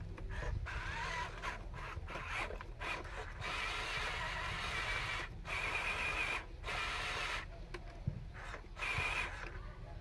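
Electric motor and gearbox of a Huina 1573 RC dump truck whirring in stop-start bursts as it is driven, the longest burst a little under two seconds.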